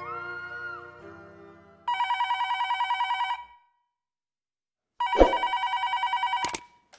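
Corded desk telephone ringing with a rapid electronic trill: two rings of about a second and a half each, with a pause of about the same length between them. Background music fades out before the first ring, and a short thump comes at the start of the second ring.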